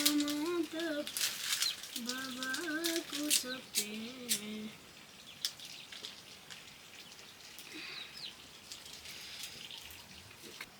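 A person's voice talking or vocalizing with a bending, sing-song pitch for the first four or five seconds, among scattered light clicks and knocks. After that only occasional faint clicks remain.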